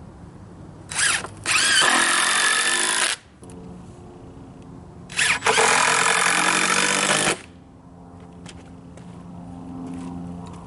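Power drill running in two bursts of about two seconds each, about a second in and about five seconds in, each started with a short blip of the trigger.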